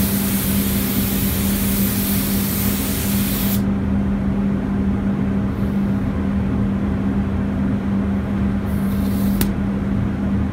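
Rongpeng R802 gravity-feed spray gun hissing as it atomises paint, cutting off suddenly about a third of the way in when the trigger is released. A brief hiss returns near the end, ending in a click. A steady low hum runs underneath.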